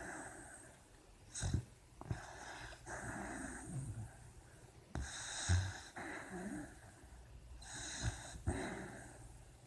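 Sleeping puppy breathing noisily, a run of wheezy, snoring breaths about every second, some with a low snort underneath. A few soft knocks come between the breaths.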